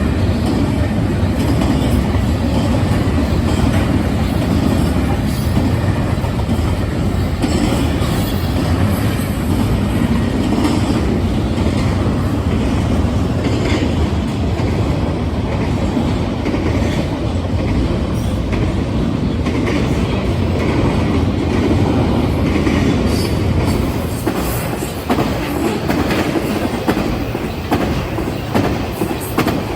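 A train passing close by: a steady rumble of wheels on rail, with clicking over the rail joints that becomes more distinct and uneven in the last few seconds.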